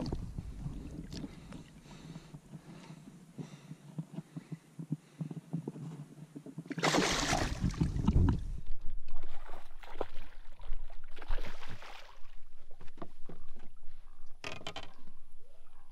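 Low handling rumble, then a loud splash about seven seconds in as a largemouth bass is let go at the side of the boat. Irregular water splashing and sloshing follow.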